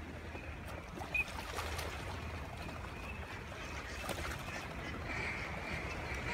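A large flock of mallards calling as they pour in over flooded timber: many overlapping quacks over a steady rushing background, with one short, sharper and louder note about a second in.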